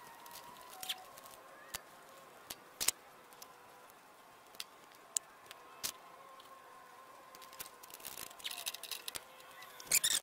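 Hands and tools working on the wiring inside a MIG welder's cabinet: scattered small clicks and taps, a short rustling patch near the end and a sharp click at the very end, over a faint steady high tone.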